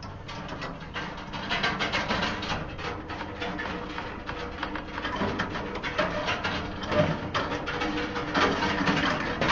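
Backyard poultry, chickens and ducks, calling, over a busy run of small clicks and knocks.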